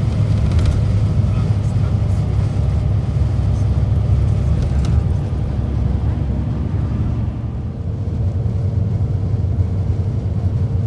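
Bus engine running, a steady low rumble, with a faint higher steady hum joining about two-thirds of the way through.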